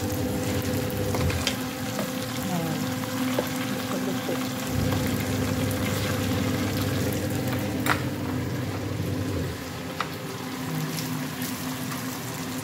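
Food deep-frying in a pot of hot oil, with a steady bubbling sizzle. A steady low hum runs underneath, and a few sharp clicks come through, one near the end of the first second and others at about eight and ten seconds.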